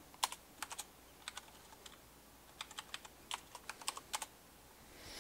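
Typing on a computer keyboard: faint, irregular keystrokes in short runs of clicks.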